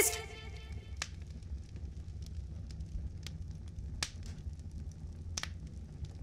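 Faint low hum with scattered sharp crackles and clicks, a few seconds apart; the last notes of music die away at the very start.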